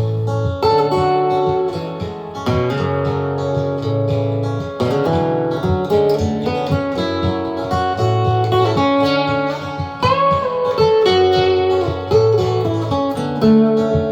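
Guitar music: an acoustic guitar strummed and picked, with chord changes every second or so.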